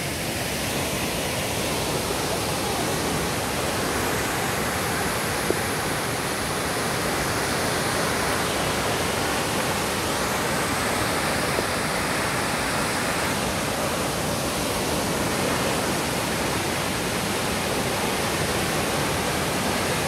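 Steady rushing of the tall Velo de Novia waterfall at El Chiflón, a continuous even noise with no breaks.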